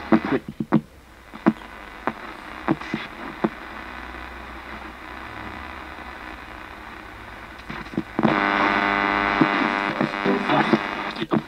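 Portable radio used as a ghost box, sweeping through stations: hiss and low hum broken by short clicks as it jumps from station to station. About 8 seconds in, a loud buzzing tone comes through for about three seconds, then breaks off into clicks.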